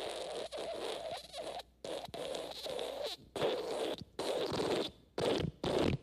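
Wet fart sound effect: a long run of rough, sputtering noise broken by brief gaps, turning into quicker, shorter bursts near the end.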